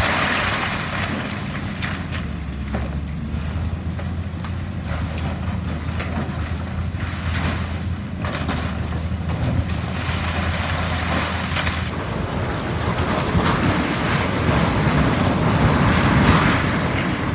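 Demolition of a brick building wall: heavy machinery running with a steady low engine drone, over scattered crackling and clattering of breaking masonry and debris, with wind buffeting the microphone. The engine drone drops out about two-thirds of the way through.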